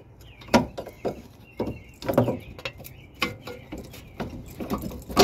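Steel pry bar levering a minivan's lower control arm down against the steering knuckle to force out the worn lower ball joint: a run of irregular metal knocks and clunks, about a dozen in five seconds.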